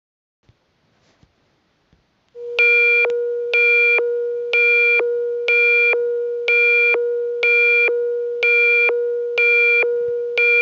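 Electronic emergency alert tone. A few seconds in, a steady low hum-like tone comes on, and over it a higher, buzzier tone beeps on and off about once a second.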